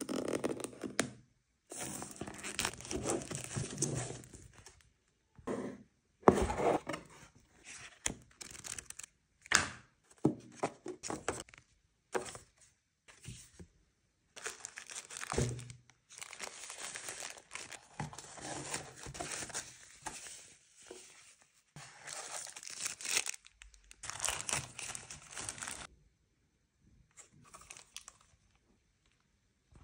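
Unboxing sounds: a craft knife slitting the box seal, then cardboard, paper leaflets and a foil wrapping rustling, tearing and crinkling in repeated bursts, with a few sharp knocks as parts are handled.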